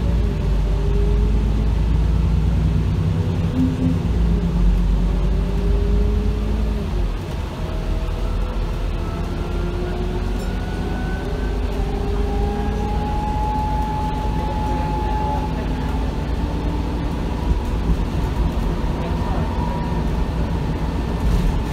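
Alexander Dennis Enviro 400 double-decker bus heard from inside the lower saloon while under way: a deep engine rumble with whining drivetrain tones that climb slowly as the bus picks up speed and drop back at gear changes.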